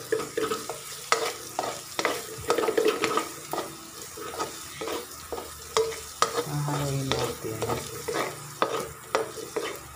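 Chopped onion and garlic sizzling in hot oil in a wok while a spatula stirs and scrapes them around the pan, clicking on the metal about twice a second. They are being sautéed until they brown.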